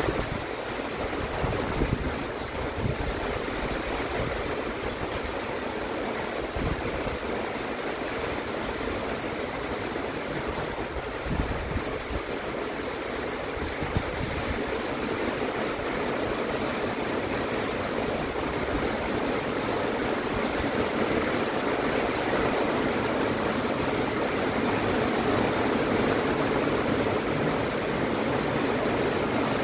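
Heavy rain falling steadily, an even hiss that grows gradually louder through the second half.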